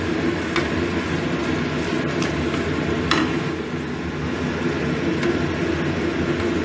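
Stir-fry of chicken, tofu and salted greens simmering in liquid in a wok over a steady low kitchen hum, with three short knocks of a wooden spatula against the pan in the first three seconds as it is stirred.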